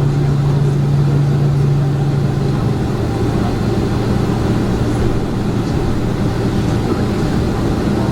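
Boeing 767-400ER cabin noise while taxiing in after landing: a steady rumble from the engines and airframe, with a low hum that steps down in pitch about two and a half seconds in.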